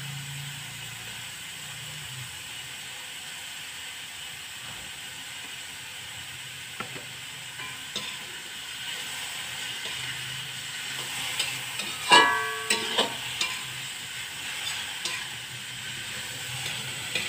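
Tempe sizzling as it is stir-fried in an aluminium wok, with a metal spatula scraping and knocking against the pan. About twelve seconds in the spatula strikes the wok with a loud ringing clang, followed by a few smaller knocks.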